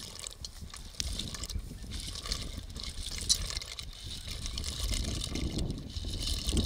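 Dry penne pasta tumbling out of a bowl and dropping into a cast-iron pot of boiling water, with a steady watery bubbling and a few light clicks and splashes as the pieces land.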